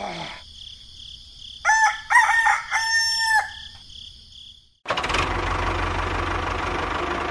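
A rooster crows once: a few short notes and then a long held note that drops at the end. About five seconds in, a steady hum with hiss starts.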